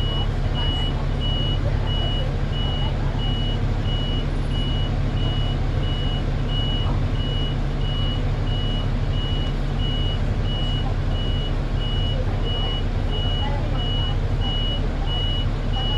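A 1991 MAN SL243 city bus's diesel engine idling steadily while stationary in traffic, heard inside the bus. A steady high electronic beep repeats about twice a second throughout.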